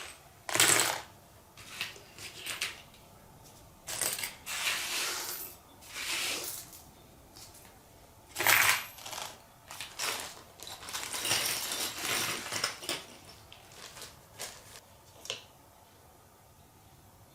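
Hard objects being moved and set aside, clattering and clinking with a metallic ring, in a dozen or so separate bursts.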